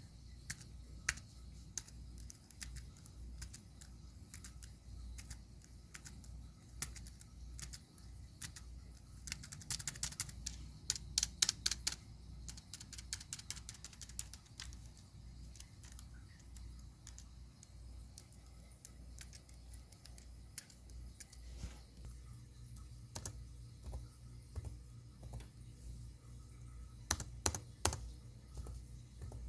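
Keyboard keys being pressed and clacking in irregular taps, with quicker runs of rapid keystrokes about ten seconds in and again near the end.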